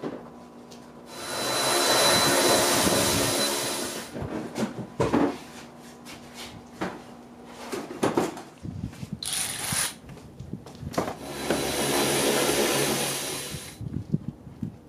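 A small motor runs twice with a rushing whir, each time for about three seconds, swelling up and dying away. Between the runs come knocks and clatter of car interior parts being handled.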